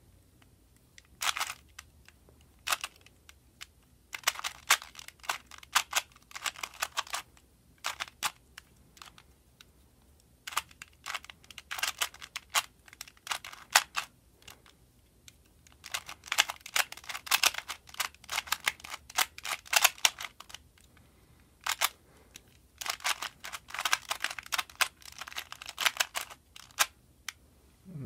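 A plastic 2x2 puzzle cube being turned quickly by hand during a solve: rapid clicking and clacking of its layers, in bursts of one to a few seconds with short pauses between them.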